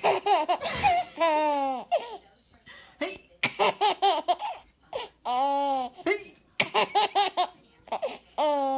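Baby laughing in repeated bursts, some quick chopped giggles and some long high squeals, with short pauses between them.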